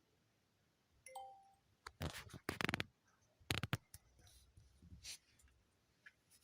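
A short two-note electronic chime stepping up in pitch, from a Philips 7000 Series robot vacuum during Wi-Fi setup. It is followed by a run of sharp clicks and taps, loudest about two to four seconds in.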